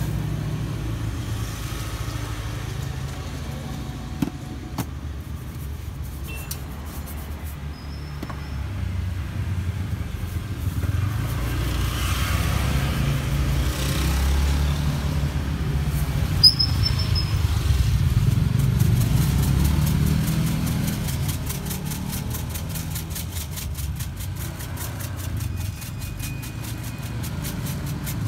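Street traffic with motorbikes and cars passing: a steady low rumble that swells through the middle and eases off again, with a couple of light clicks from utensils on the pans.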